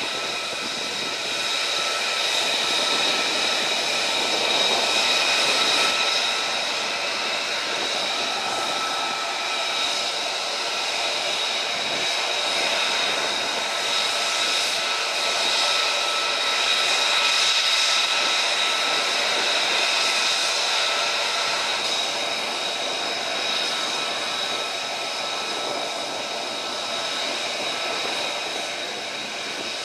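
Jet engines of a column of taxiing F-35 fighters and large transport jets: a steady rush of engine noise with a high turbine whine of several held tones. One of the lower tones fades out about two-thirds of the way through.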